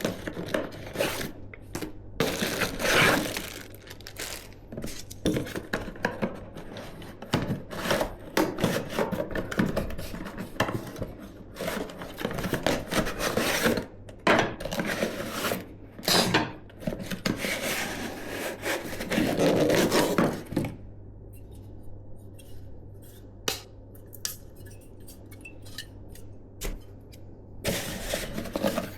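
Hands handling PC components and their packaging: a busy run of rubbing, scraping and small clicks for most of the time, thinning to scattered light clicks for a few seconds before a short burst of handling near the end.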